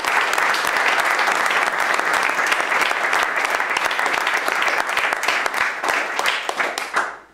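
Audience applauding, many people clapping at once, dying away near the end.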